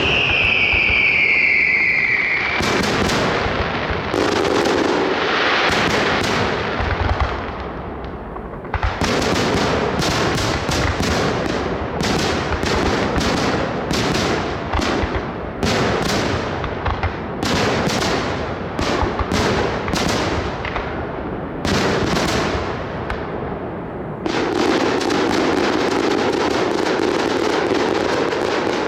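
Aerial fireworks display. A falling whistle opens it, then comes a dense run of sharp bangs from bursting shells with crackling between them.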